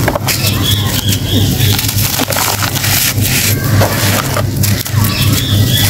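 Hands crushing and crumbling lumps of compacted sand: a gritty crunching made of many short crackles, with a low hum underneath.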